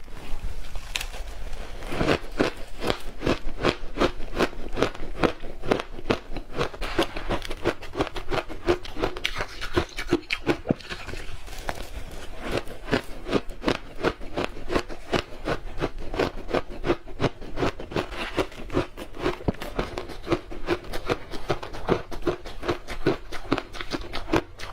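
A person biting and chewing ice, a rapid run of sharp crunches, several a second.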